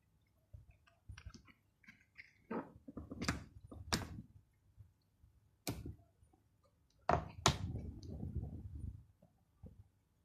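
A handful of sharp clicks and knocks, about five strikes, from small hard objects being handled and set down, over low rumbling handling noise.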